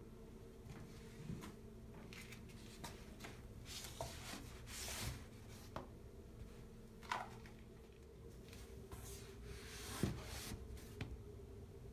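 Faint rustling and a few soft taps of handling, scattered through, over a steady low hum.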